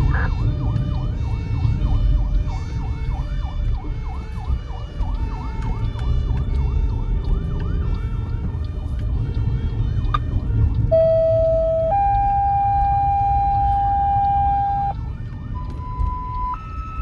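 Fire engine siren wailing in rapid, repeating sweeps over a low engine rumble. At about ten seconds the sweeps stop, and a run of long steady tones follows, each one a step higher in pitch than the last.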